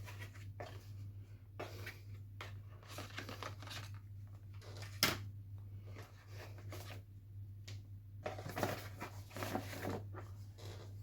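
Handling and opening a CPU retail box: irregular rustling and crinkling of cardboard and plastic packaging with small clicks, one sharper click about halfway through and busier rustling near the end, over a low steady hum.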